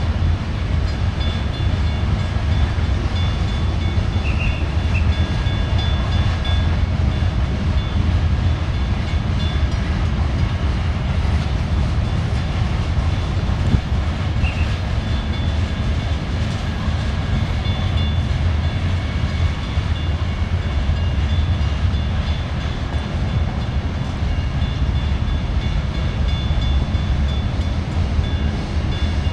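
Coal train hopper cars rolling past on the rails: a steady low rumble, with a thin high-pitched squeal that comes and goes.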